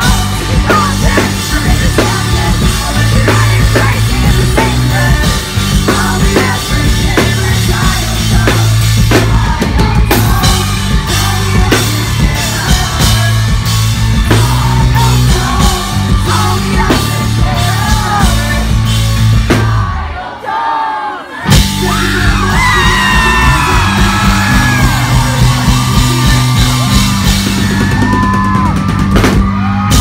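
Pop-punk band playing live and loud: electric guitars, bass and drum kit under a yelled, sung lead vocal. The band stops dead for about a second about two-thirds of the way through, then crashes back in with the vocal over it.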